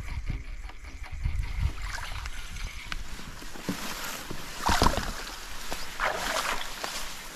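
Low thumps of handling on the microphone, then two louder rustling bursts about four and a half and six seconds in, as the camera is moved around the inflatable boat.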